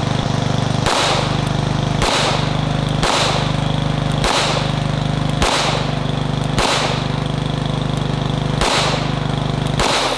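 Eight 9mm pistol shots, about a second apart with a longer gap before the last two, over the steady running of a lawnmower engine.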